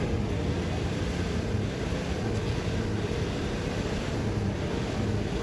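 A steady low mechanical drone, like an engine running, with a faint hum held throughout.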